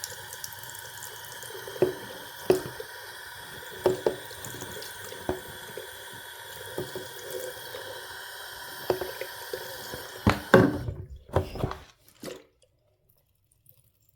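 Water running from a tap, with scattered knocks of handling; about ten and a half seconds in come several loud clunks and the running water stops.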